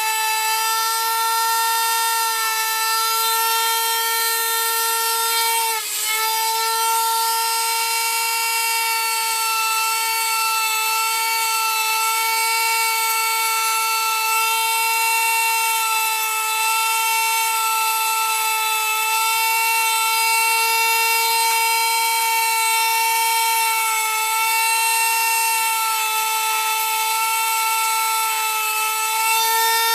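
Dremel rotary tool with a sanding drum running at a steady high speed, a constant whine that dips briefly about six seconds in, as it sands the orange coating off a dipstick tube.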